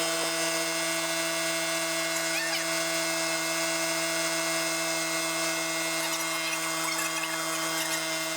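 Portable air compressor running with a steady motor hum, pumping air into a flat car tire that has partly come off its bead.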